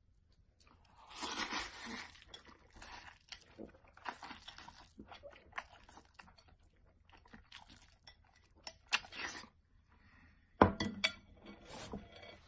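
A person crunching and chewing food in irregular bites, with the loudest, sharpest crunch a little before the end.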